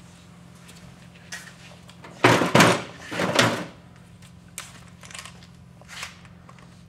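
A few loud clunks and rattles of hard objects being handled, bunched between about two and three and a half seconds in, with light clicks before and after over a faint steady hum.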